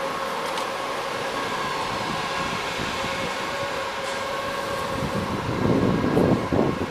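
Škoda ForCity Smart Artic tram standing at a stop, its onboard equipment humming with a steady high whine over hiss. From about five seconds in, wind buffets the microphone.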